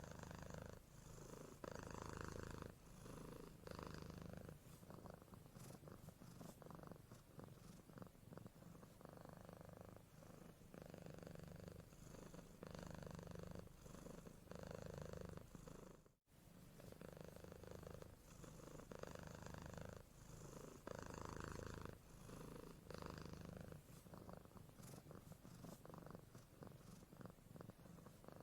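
A sleeping young kitten purring softly, the purr swelling and fading with each breath. It cuts out briefly about halfway through.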